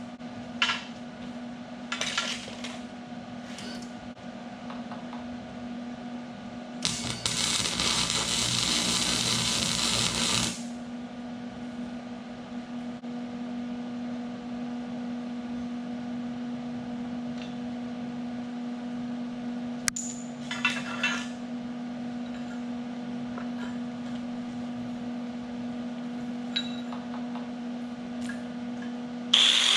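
Steady electrical hum of a shop welder, broken by short bursts of crackling hiss as welds are laid, the longest lasting about three and a half seconds.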